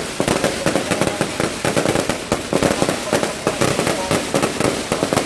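Fireworks going off in a rapid, continuous string of bangs and crackles with no pause.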